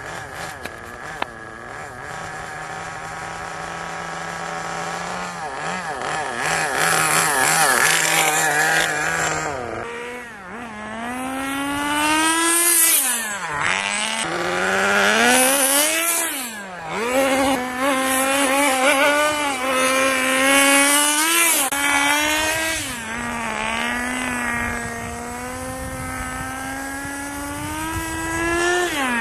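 Small two-stroke glow-fuel nitro engine of a 1/10-scale RC car running laps, its pitch steady at first and then repeatedly climbing and dropping as it accelerates and backs off.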